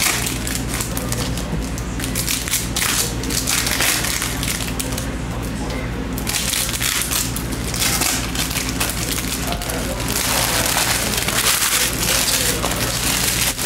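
Hands handling football trading cards and foil pack wrappers: a continuous scratchy rustling and crinkling as cards are slid and flipped onto a stack and packs are torn open.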